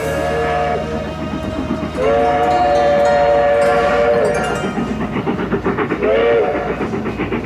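Steam-train whistle sound in music: a long chorded whistle blast that slides up in pitch and holds for about two seconds, then a short second blast near the end, with a rhythmic chugging clatter between.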